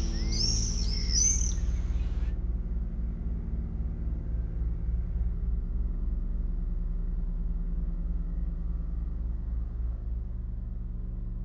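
Electronic sound-art drone with a low pulsing throb. For about the first two seconds, quick high bird-like chirps ride over it, then cut off abruptly.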